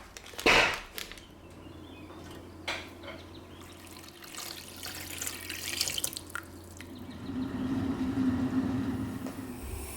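Water running from a kitchen tap into a sink, with a sharp knock about half a second in and a few lighter clicks.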